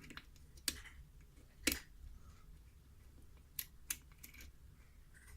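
Lock pick and tension wrench working a six-pin KIK lock cylinder: a handful of small, sharp, irregular clicks of metal on the pins and keyway.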